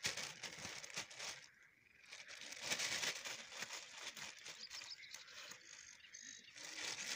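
Irregular rustling and small clicks of a mesh keepnet and grass as a hand moves crucian carp about inside the net.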